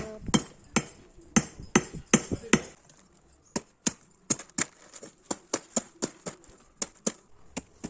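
A kitchen utensil knocking in a steady rhythm, about three strikes a second, louder for the first couple of seconds and then lighter.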